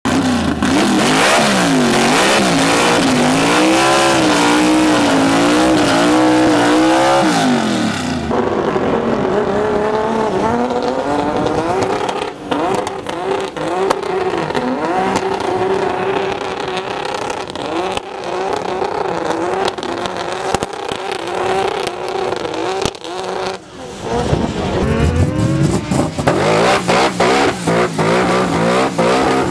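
Drag-race cars doing burnouts, their engines revved hard while the rear tyres spin and smoke, the engine pitch swinging up and down. The sound changes abruptly twice, about a third and about four fifths of the way through, as different cars take over.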